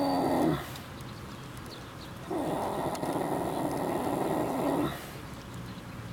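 A sleeping horse snoring: one snore ends about half a second in, then a longer snore of about two and a half seconds begins about two seconds in.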